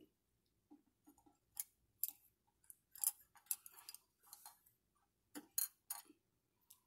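Faint, irregular clicks and taps of small wooden sticks knocking against each other and a wooden tabletop as yarn is tied around them.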